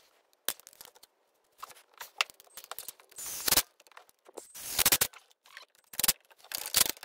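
Cordless impact driver running 4 mm Allen bolts back in at a snowmobile engine's mag-side crank bearing, in several short bursts, the longest near the middle, with tool clicks and handling knocks between.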